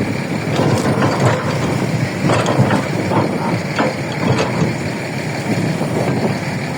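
An engine running steadily under a dense layer of irregular knocks, clatter and crackle.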